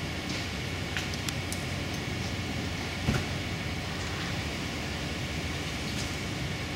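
Steady mechanical hum and hiss with a faint constant high tone, broken by a few light clicks and one sharper knock about three seconds in.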